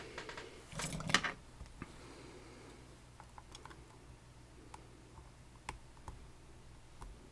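Small metal clicks and a short rattle from tools and parts being worked on a Dierre New Power lock: a cluster of rattling, scraping clicks in the first second or so, then scattered light clicks.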